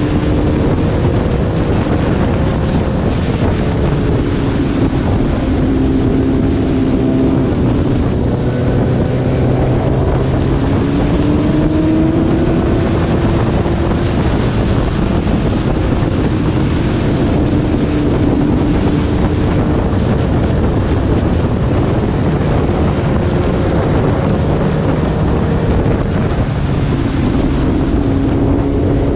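Kawasaki ZX-10R's inline-four engine running at speed, its pitch rising and falling over and over with throttle and gear changes, under steady wind rush on the microphone.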